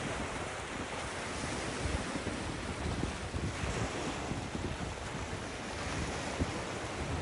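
Ocean surf washing steadily, with wind buffeting the microphone in irregular low rumbles.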